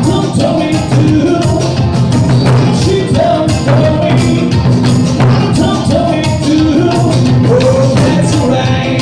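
Live ensemble music: taiko drums struck over and over, a large barrel drum and smaller drums, under a gliding melody from a shamisen and a lap-played slide guitar.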